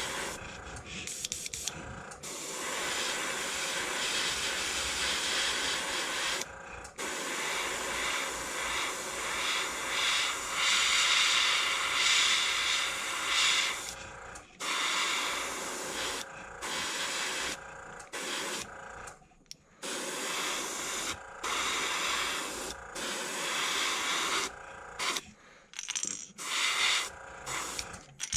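Airbrush spraying paint in a run of on-off hisses, some several seconds long, others short, broken by brief pauses as the trigger is released.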